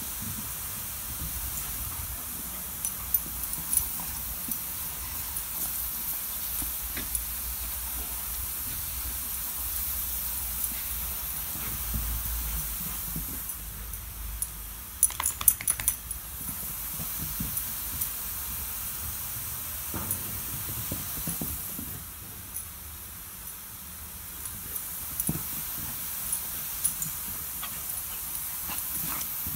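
Garden sprinklers spraying with a steady hiss. Scattered light clicks run over it, with a quick cluster of sharper clicks about fifteen seconds in.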